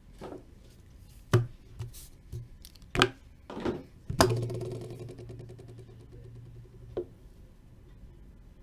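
Trading cards and their packaging handled on a table: a handful of sharp taps and clicks, then a steady low hum that starts with a click about four seconds in and cuts off with another click about three seconds later.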